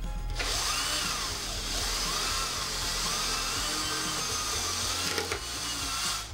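18 V cordless drill with a Forstner-type bit boring a hole into a wooden board, the motor's pitch rising and falling as the trigger is worked; it starts about half a second in and stops just before the end. Background music plays underneath.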